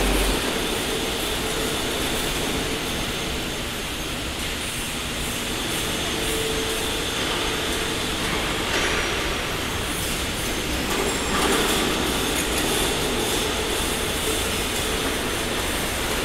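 IBR metal roof panel roll forming machine running, a metal sheet passing through its rows of forming rollers: a steady mechanical noise with a faint hum.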